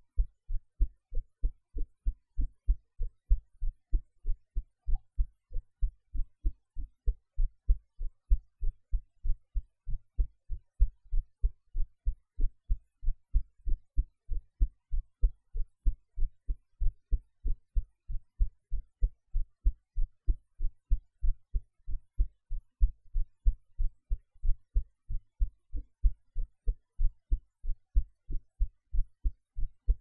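A woman's heartbeat, recorded while she lies on her side and noise-reduced by editing: a steady, even run of short, dull thumps.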